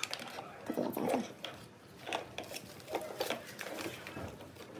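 Hands handling bubble-wrapped parts, cables and a plastic bottle: irregular rustling with small clicks and light knocks.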